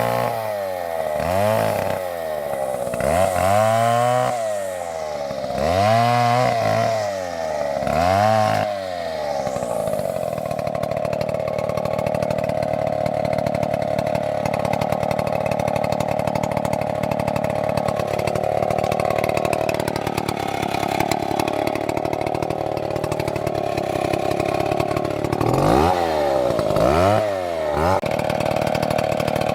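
Chainsaw engine revved up and down over and over for about the first nine seconds, then held at a steady high speed, and revved twice more near the end.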